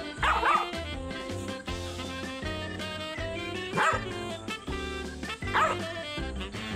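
Small puppy barking three times in short, high yips, near the start, just before four seconds and near six seconds, over steady background music.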